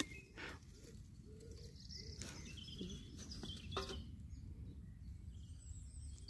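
Faint birds chirping and calling over a steady low outdoor rumble, with a few soft clicks.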